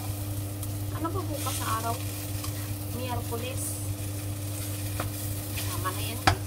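Sliced potatoes sizzling as they pan-fry in a nonstick frying pan, while a plastic slotted spatula scrapes and turns them in short strokes. One sharp knock near the end.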